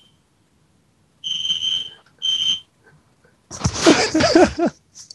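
Building fire alarm horn sounding over a phone line: two short high-pitched beeps about a second in. Near the end comes a louder, wavering human vocal outburst.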